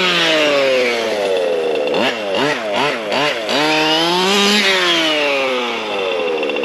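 ESP 30.5cc two-stroke race engine in a Losi 5ive-T 2.0 RC truck, revving up and down under the throttle. It falls from high revs, gives a run of quick short throttle blips, then climbs again and drops back as the throttle is let off. This is the half-throttle-and-roll heat cycling used to run in a new engine.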